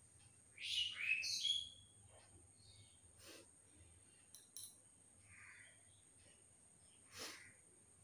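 Wild birds calling: a loud run of gliding chirps about a second in, then scattered fainter calls, and a harsher single call near the end.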